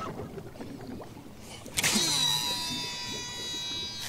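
A rod swish about two seconds in, followed by the whine of the fishing reel's spool as line pays out on a cast. The whine holds steady for about two seconds and fades as it ends.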